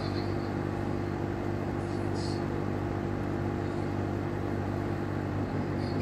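MeacoDry Arete One 25L dehumidifier running with a steady low hum, its top control panel vibrating against the casing: a fault the owner has had on two of these machines.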